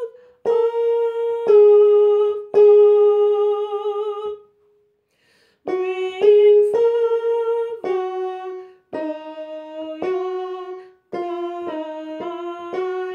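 A hymn's harmony part played note by note on an electronic keyboard, each note held a second or two with a sharp attack, and a woman singing along on the same notes. There is a short pause in the middle, and two notes sound together near the end.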